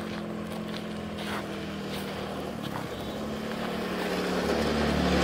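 Motor scooter engine running as it approaches, growing steadily louder.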